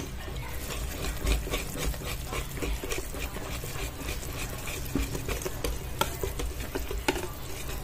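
Wire whisk stirring thick pancake batter in a metal bowl: the wires scrape and click against the bowl in quick, irregular strokes as the flour is mixed in.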